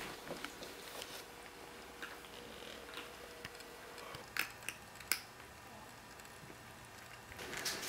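Kittens eating from a plastic food bowl: faint scattered clicks and crunches, with a few sharper clicks about halfway through.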